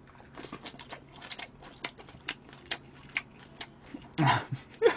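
A person chewing a mouthful of seasoned chives close to the microphone: irregular wet clicks and smacks, a few a second, with a brief louder sound just after four seconds in.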